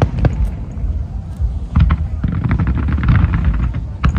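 Aerial fireworks display: a dense, irregular run of sharp bangs from bursting shells over a continuous low rumble.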